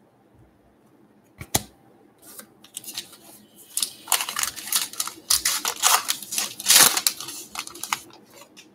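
Baseball card pack wrapper being torn open and crinkled by hand, with rustling that builds from about two seconds in and is loudest near the end; a single sharp click comes about a second and a half in.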